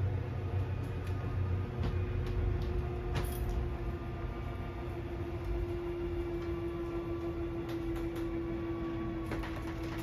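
Travel trailer's electric slide-out motors running steadily with a constant hum as the slide room extends, with a few light clicks.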